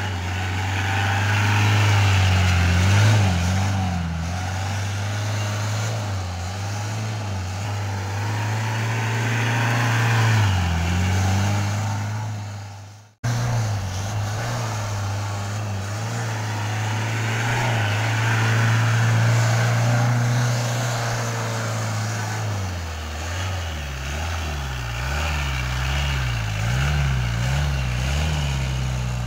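WWII-style Jeep's engine running at steady high revs as it drives in circles on dirt. There is a sudden break about thirteen seconds in. In the last several seconds the engine note drops lower and wavers.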